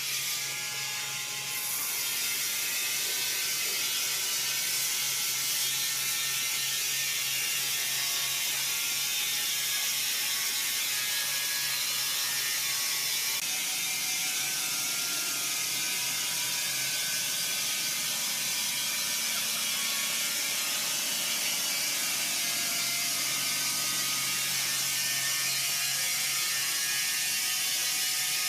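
Machinery running steadily for the whole stretch, with a fast mechanical rattle over a high hiss and a low hum.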